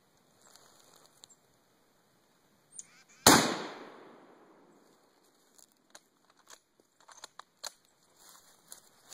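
A single shot from a Mosin-Nagant 91/30 rifle in 7.62x54R: one sharp, loud crack about three seconds in, its echo fading over about two seconds, followed by a few faint clicks and rustles.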